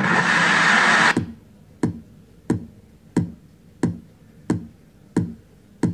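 Hip-hop track played through a Logitech X300 portable Bluetooth speaker and picked up by a phone microphone. A full synth-and-drum passage cuts off about a second in. It gives way to a bare drum-machine kick beat, about one and a half deep, downward-pitched thumps a second.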